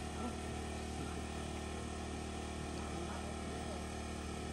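A steady low hum with faint, distant voices now and then.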